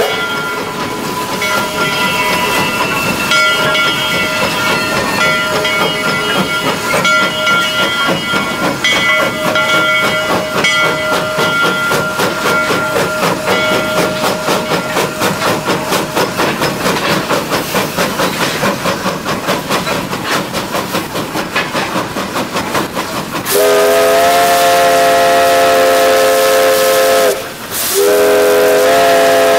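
Steam locomotive running under steam, heard from the cab: a steady chuffing beat of about three a second over steam hiss. About 23 seconds in, the whistle sounds a long blast of several tones at once, stops briefly, then sounds a second long blast.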